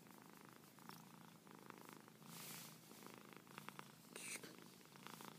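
A flat-faced long-haired cat purring softly and steadily while being stroked under the chin, with a couple of short hissing noises near the middle and about four seconds in.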